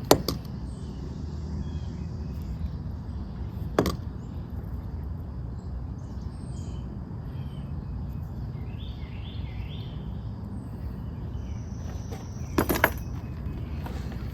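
Outdoor ambience: a steady low rumble with three sharp cracks, one at the start, one about four seconds in and one near the end, and birds chirping faintly in the middle.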